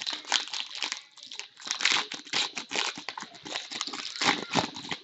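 Foil wrapper of a 2015-16 SP Game Used hockey card pack being torn open and crinkled in the hands: a dense run of sharp, irregular crackles.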